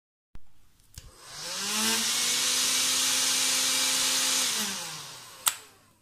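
Canister vacuum cleaner switched on with a click: the motor spins up with a rising whine, runs steadily with a hissing rush of air for about two and a half seconds, then winds down in falling pitch. A sharp click comes about five and a half seconds in.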